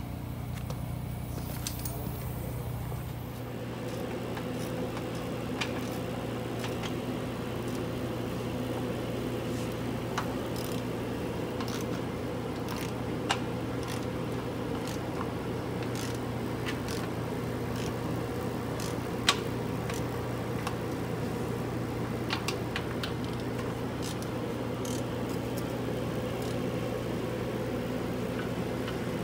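A steady machine hum with scattered sharp clicks and clinks of hand tools and metal fittings as a cooler and its hose are fitted under a truck. The hum deepens and fills out a few seconds in.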